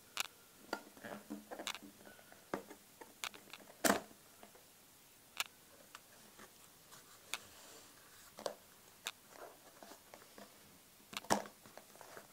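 A cardboard phone box being opened by hand: scattered taps, scrapes and rustles of card as the lid comes off, a flap is folded back and the handset is taken from its tray. The loudest knocks come about four seconds in and again near the end.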